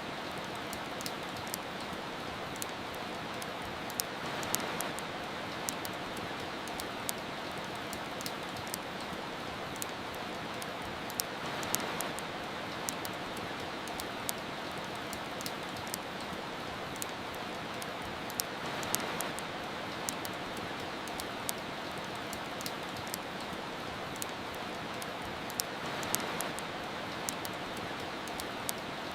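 Steady rain hiss with frequent sharp crackles and pops from a wood fire, the rain swelling slightly about every seven seconds.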